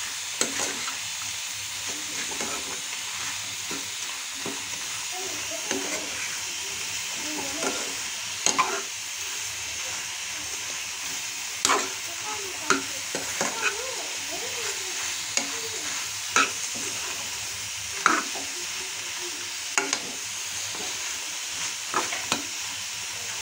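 Spine gourd pieces sizzling in a pan while a metal slotted spoon stirs roasted masala through them. The spoon knocks and scrapes against the pan every second or two over a steady frying hiss.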